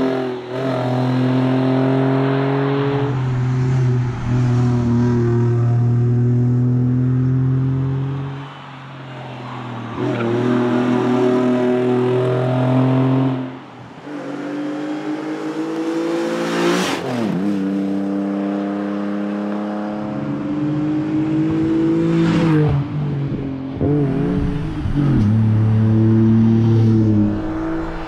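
Jaguar S-Type X200 rally car's engine revving hard on a tarmac stage, its pitch climbing under acceleration and stepping down at gear changes across several short runs. About 17 s in the car passes close by and its engine note drops sharply.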